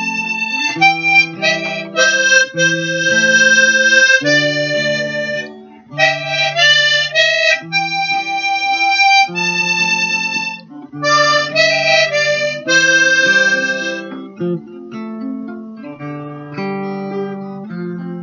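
Harmonica in a neck holder playing a melody over a strummed acoustic guitar. Near the end the harmonica drops out, leaving the guitar strumming alone.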